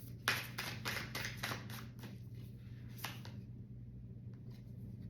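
Tarot cards being shuffled: a quick run of short papery clicks through the first two seconds, a few more about three seconds in, then only faint handling.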